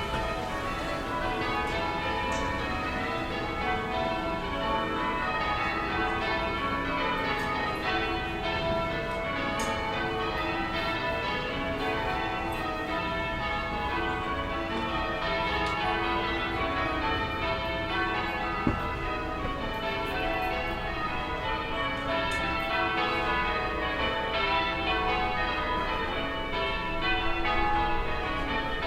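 Church bells ringing a continuous peal from a distance, many bells struck in quick overlapping succession, over a steady low town rumble.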